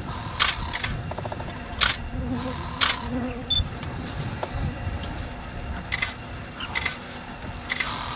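Camera shutters clicking, single clicks spaced irregularly, over a steady low rumble.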